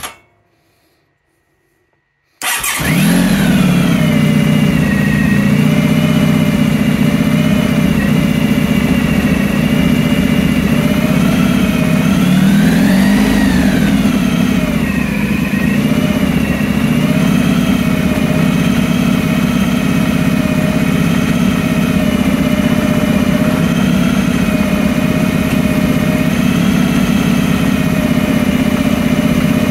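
After about two seconds of near silence, a Honda ST1100 Pan European's V4 engine runs steadily and not very fast, its revs rising and falling once about twelve seconds in.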